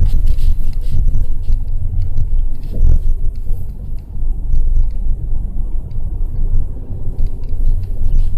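Wind buffeting the microphone: a loud, irregular low rumble that rises and falls in gusts.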